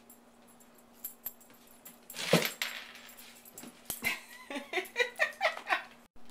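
Yellow Labrador retriever playing with toys on a tile floor: clicks of claws and a rubber ball on the tiles, a louder pitched sound about two seconds in, then a quick run of short high whines near the end.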